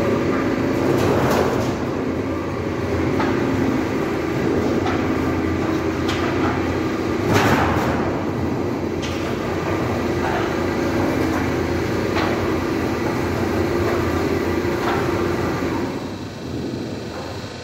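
Metal roofing-sheet roll forming machine running, forming a trapezoidal steel sheet through its rollers: a steady mechanical hum with sharp metallic scrapes and knocks every few seconds. The noise dies down near the end.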